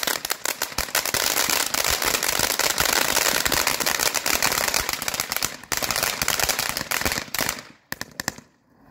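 TNT Magic Seashell fan fountain firework in its crackling phase: a dense run of rapid crackles and pops over the hiss of its spray. About eight seconds in it thins to a few last pops, then dies away.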